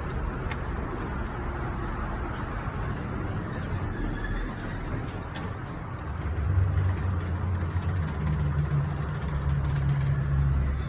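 Low steady machinery rumble of a Schindler elevator, with a couple of light clicks; about six and a half seconds in, a louder low hum sets in and holds, as the elevator's drive starts running.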